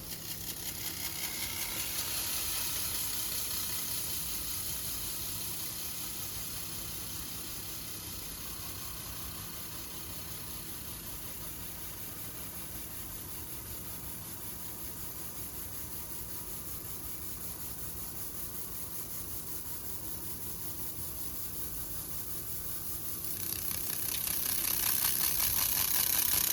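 Fiber laser drilling a hole through mirror glass: a steady, fast, even crackling hiss as the beam works the glass, starting abruptly and growing louder near the end.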